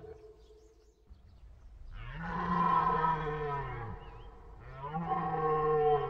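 Red deer stag roaring in the rut: two long, deep bellowing roars, the first starting about a second and a half in and dropping in pitch as it fades, the second starting near the end.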